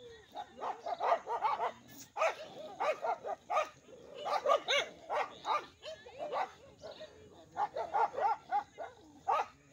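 Several free-roaming village dogs barking at each other in rapid, overlapping volleys with short lulls between, a territorial standoff between two groups of dogs.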